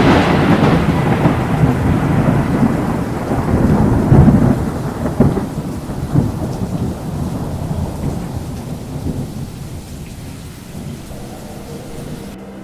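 Thunder rolling after a loud clap, swelling again about four seconds in, then slowly fading away.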